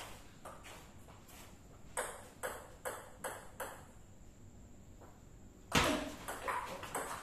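Table tennis rally: the ball clicking off the paddles and table in quick alternation, about two hits a second, then a gap of nearly two seconds and a much louder hard hit about six seconds in, followed by a few more quick clicks.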